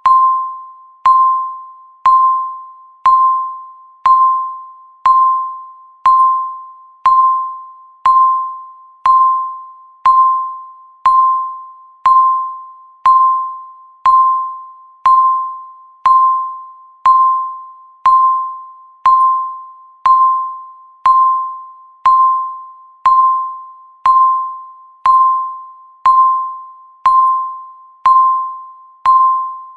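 Countdown timer's electronic beep sounding once every second, a single short tone of one pitch that fades quickly after each strike, marking the seconds as the timer counts down.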